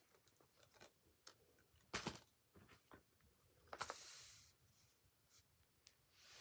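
Faint handling of a plastic Blu-ray case and its paper code insert: a few light clicks, the sharpest about two seconds in, then a click and a brief rustle about four seconds in as the insert is set down on carpet.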